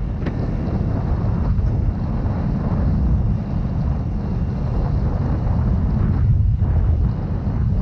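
Wind buffeting the microphone on a moving Yamaha Mio Gravis scooter, with a steady rumble of engine and road noise beneath it.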